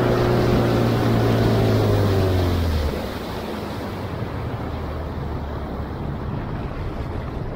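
Boat motor running with its pitch slowly falling as it is throttled back. About three seconds in it drops to a quieter low idle under a steady rush of water and wind.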